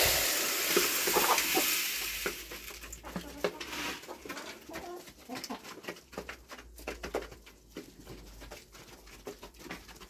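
Pellet feed poured from a plastic container into a plastic chicken feeder, a rush of pellets that fades over about two seconds, followed by many quick, irregular ticks of Amrock hens pecking pellets from the feeder.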